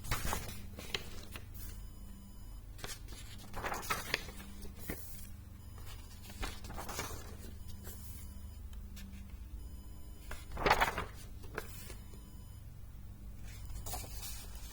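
Paper pages of an old handbook being turned and handled, in several short rustles, the loudest about eleven seconds in, over a low steady hum.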